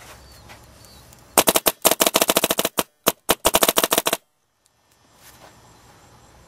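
Dye Matrix electronic paintball marker firing rapid strings of shots, about ten a second, in a few quick bursts. The firing stops suddenly about four seconds in.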